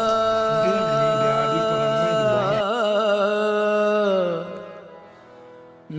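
Opening of a devotional qawwali song: a singer holds long notes, wavering into vibrato between them, over a lower accompanying line. The phrase fades out about four and a half seconds in.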